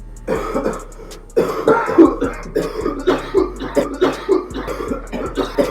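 A person coughing hard, one short burst after another in a long fit, the coughs coming faster and stronger from about a second and a half in. The fit is brought on by the heat of very hot Blazin' sauce chicken wings.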